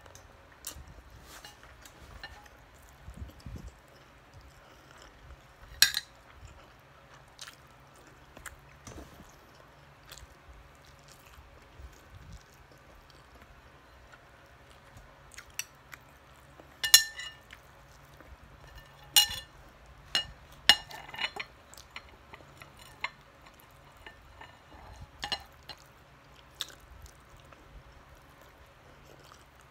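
Close-up eating sounds of rice and siomai being eaten by hand: quiet chewing and mouth noises broken by scattered sharp clicks and clinks. The loudest come in a cluster a little past halfway through.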